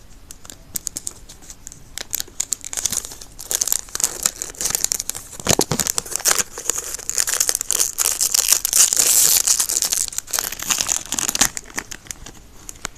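Foil trading-card booster pack wrapper being torn open and crinkled in the hands: a dense, irregular crackle that is busiest about two-thirds of the way through.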